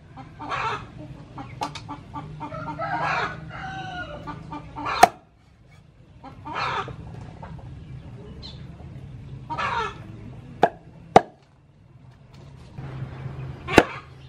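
Chickens clucking and calling, with a rooster crowing about three seconds in. Four sharp chops of a cleaver on a wooden cutting board are spread through the clip, two of them close together near the end.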